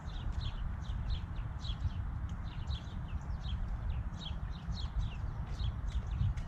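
A small bird chirping over and over, short falling chirps about two or three a second, over a steady low rumble.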